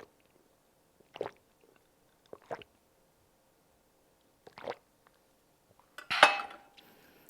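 A person drinking water in gulps: four separate swallows, a second or more apart. About six seconds in there is a louder knock with a short ring.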